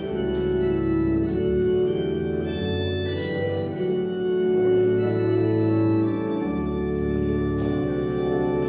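Church pipe organ played as a four-hand duet: sustained chords over a deep pedal bass that moves to a new note every second or so, growing louder about halfway through.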